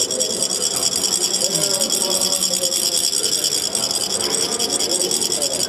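Ridged metal chak-pur funnel being rasped with a second chak-pur, a fast, steady scraping rattle that sets coloured sand trickling out onto a sand mandala. The rasping stops suddenly at the end.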